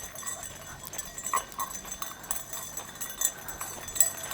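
Footsteps of a person and dogs walking on a road, irregular light steps with small clicks and ticks.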